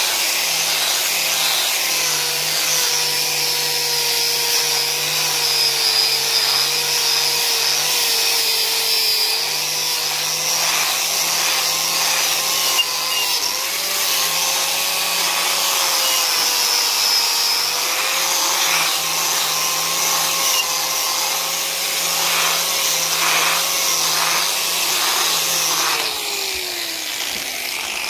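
Electric grinder running at full speed against the metal of a drill vice, cleaning it up, with a steady motor whine and the hiss of abrasion. A couple of seconds before the end it is switched off and the whine falls as it spins down.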